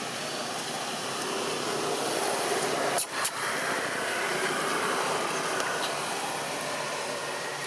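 Steady road-traffic noise, swelling through the middle as a vehicle passes, with two sharp clicks about three seconds in.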